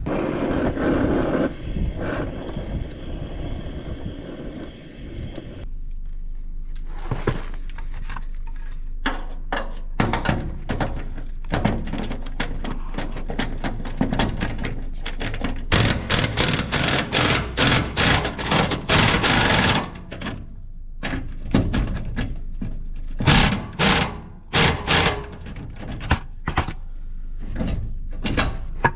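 Tools knocking and clanking on metal while working on the truck: a few seconds of steady noise at the start, then a long series of separate sharp knocks, with a quick run of rapid strikes about halfway through.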